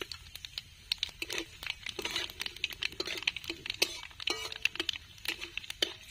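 Nigella seeds, dried red chillies and bay leaves crackling and popping in hot oil in an aluminium kadai: a spice tempering, with dense rapid pops throughout. A metal spatula stirs and scrapes against the pan in the second half.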